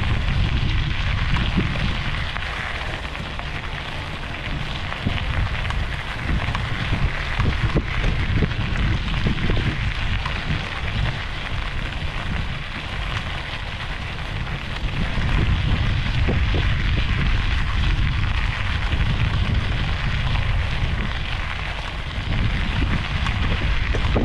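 Wind buffeting the microphone: a heavy, uneven low rumble over a steady rushing hiss.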